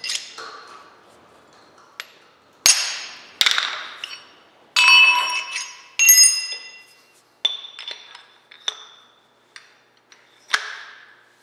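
Steel tooling (a taper-shank twist drill and a Morse taper sleeve) knocking and clinking against metal as it is handled and fitted together: a series of sharp metallic knocks, each ringing on briefly. The loudest come in the middle, with lighter taps and one more knock near the end.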